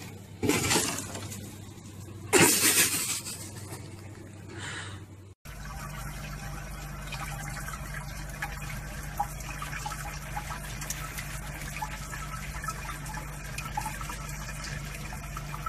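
Two short, loud noisy bursts about two seconds apart near the start, then, after a cut, a water tap running steadily in a thin stream into a sink.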